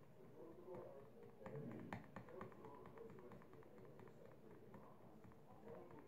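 Near silence: room tone with faint scattered taps and clicks, clustered about two seconds in.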